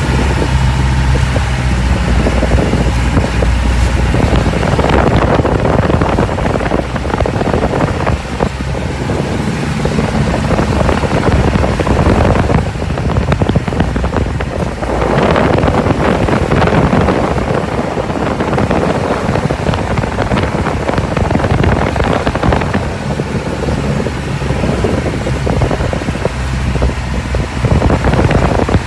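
Boat engine running steadily, with rushing wind on the microphone that swells and partly covers it through the middle stretch.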